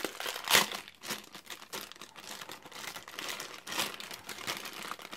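Clear plastic parts bag holding the speed controller and its wires crinkling as hands handle and turn it over, in irregular crackles with the loudest about half a second in.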